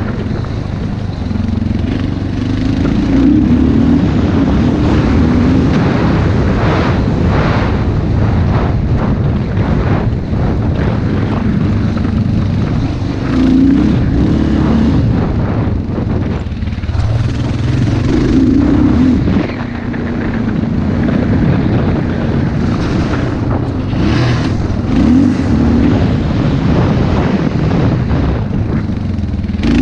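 Motocross bike engine revving up and easing off again and again as the bike is ridden hard, with wind buffeting the microphone.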